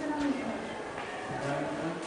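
Indistinct voices of people talking in an echoing room, with a couple of light taps.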